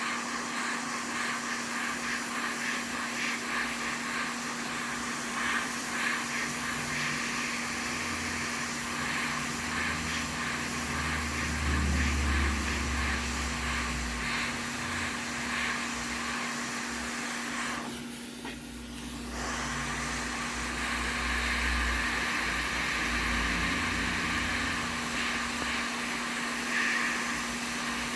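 Steady blowing of a hot-air rework station's fan over a constant low hum. The airflow cuts out for about a second some eighteen seconds in, then resumes.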